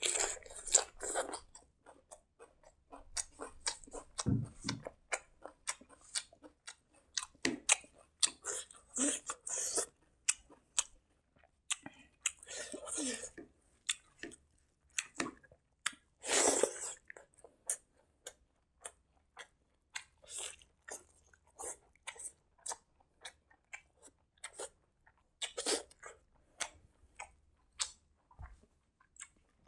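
Close-miked chewing of a mouthful of rice and side dishes eaten by hand: irregular wet mouth clicks and smacks, with a few longer, noisier chewing stretches.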